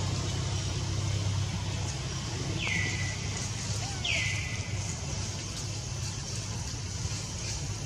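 A bird calls twice, about a second and a half apart, each a quick whistle sliding down and levelling off, over a steady low hum.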